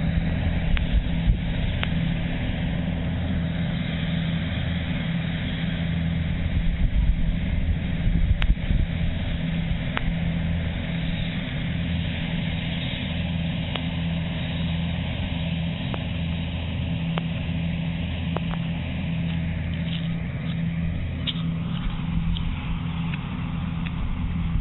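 Kubota combine harvester's diesel engine running steadily, with occasional sharp clicks from the machinery.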